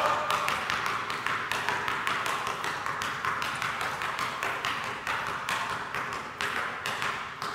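Two basketballs dribbled at once on a hardwood gym floor: a quick, steady run of bounces, several a second, growing fainter toward the end as the dribbler moves away.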